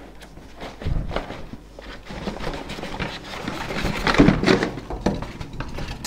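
Packing being pulled out of a cardboard box: a polystyrene foam insert and a plastic-bagged vacuum cleaner rustling, crackling and scraping against the cardboard, with a dull thump about a second in.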